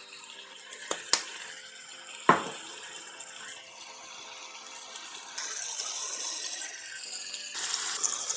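Minced chicken frying in a nonstick pan, a hissing sizzle that grows louder from about five seconds in and again near the end. There are three sharp knocks, about one and two seconds in.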